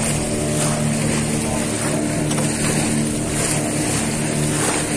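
Motorboat engine running steadily, a constant low hum under a steady rush of wind and water noise.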